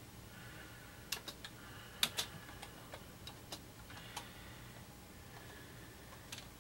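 Scattered keystrokes on a computer keyboard as text is typed: a handful of light, irregular clicks, several in quick pairs, over a faint steady hum.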